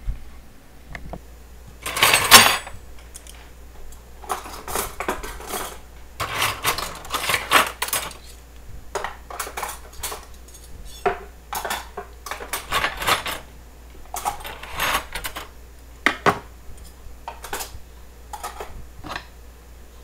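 Metal cutlery and kitchen utensils clinking and clattering as they are sorted into a kitchen drawer's divider tray, in irregular bursts, the loudest about two seconds in.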